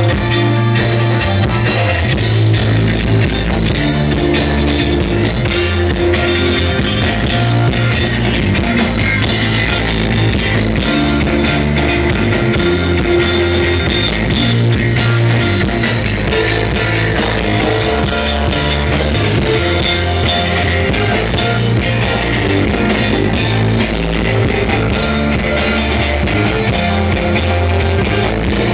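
Rock music: an instrumental passage of a rock band's song with guitar, a bass line and drum kit, with no vocals.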